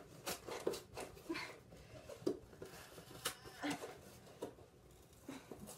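Fingers picking, scratching and tearing at a small cardboard box to get it open, a run of short sharp scrapes and clicks, with a few brief strained grunts of effort in between.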